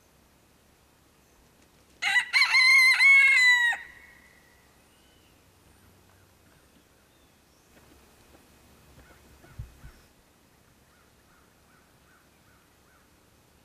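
Blue Andalusian rooster crowing once, a single crow of about two seconds that begins about two seconds in and ends with a falling tail.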